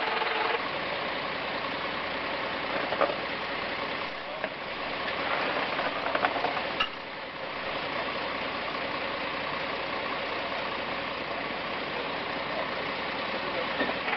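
Steady running of engines from fire-service vehicles and rescue equipment at a crash site, with voices mixed in. There are a few short metallic clanks about three seconds in and again around six to seven seconds.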